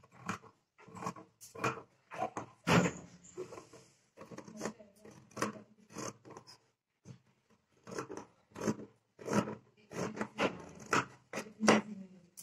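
Scissors cutting through fabric: a long run of snips, about two a second, with a short pause about six and a half seconds in.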